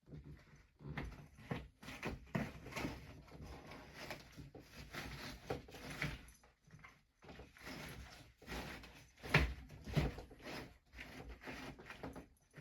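A new air filter being slid and pushed up into its slot in an AC unit: irregular scraping, rustling and knocks of the filter frame against the housing, with two louder knocks about two-thirds of the way through.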